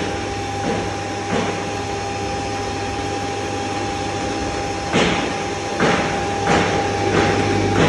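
Electric stainless-steel coriander grinder (pulverizer) running with no seed fed in yet, a steady hum under a constant whine. Sharp knocks and clatters break in several times, the loudest about five seconds in.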